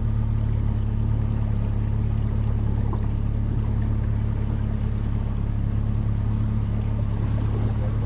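Bass boat's outboard motor running at a steady cruising speed, a constant low hum over a rush of wind and water.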